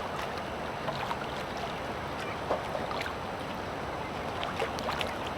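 Steady rushing outdoor noise of river water and wind on the microphone, with a few faint light clicks.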